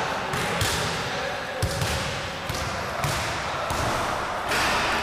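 Basketballs bouncing on a hardwood gym floor at irregular moments, with people's voices in the gym hall.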